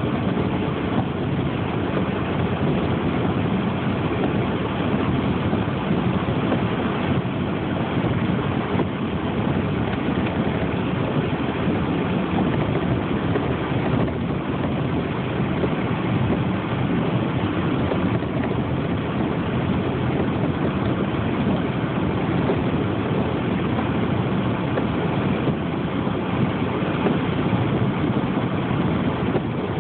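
Steady low rumbling noise of a vehicle running, even throughout with no revving or sudden sounds.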